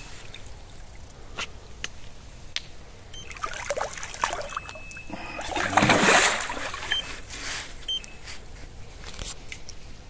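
A hooked carp thrashing at the surface in the shallow margin, splashing the water, loudest about six seconds in. Scattered light clicks and knocks around it.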